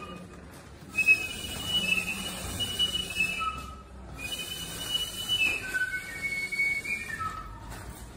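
High whistled notes blown into both hands cupped at the mouth, as on a hand flute or a small whistle. The notes waver and slide from one pitch to the next, with a short break about four seconds in.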